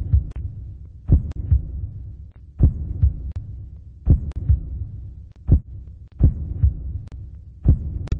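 A slow heartbeat-like pulse of double thumps, about one pair every second and a half, over a low steady hum.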